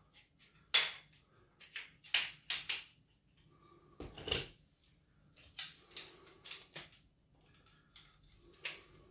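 Scattered light clicks and clacks of a folding camping cot's shock-corded aluminium-and-plastic leg sections and poles being handled and knocked together, about a dozen separate hits.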